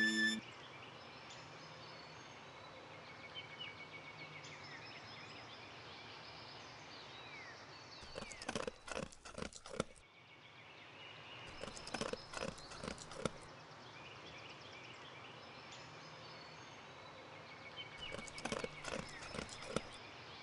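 Wolf tearing and chewing grass in three bouts of crackly munching, over a steady hiss with faint high chirps.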